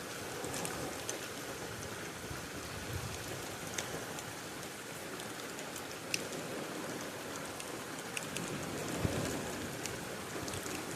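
Steady rain falling, an even hiss with scattered sharp drips ticking through it and a couple of soft low thuds near the end.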